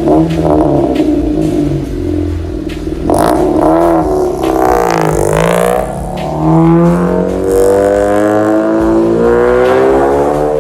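Eighth-generation Honda Civic LXS engine heard through a straight-through exhaust (catalytic converter deleted, intermediate muffler, 3-inch Nox tip), revving loudly: a quick rise and fall in revs about three to five seconds in, then a long steady climb in revs from about six seconds on.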